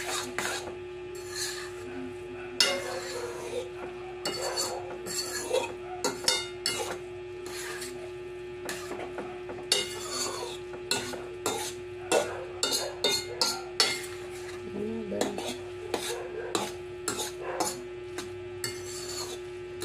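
Instant noodles in sauce being stirred and tossed in a stainless steel pan with a metal utensil: irregular scraping and clinking of metal on the pan, with a light sizzle from the heated pan. A steady hum runs underneath.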